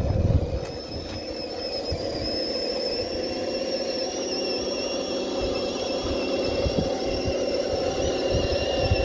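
Electric motor and gearbox of an RC truck whining steadily while towing another RC car, the high whine rising a little about halfway through, over an uneven low rumble.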